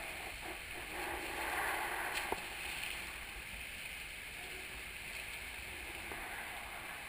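Splashing of a swimmer's butterfly strokes and turn at the pool wall, over the steady wash of an indoor pool. The splashing swells louder between about one and three seconds in, with one sharp knock just after two seconds.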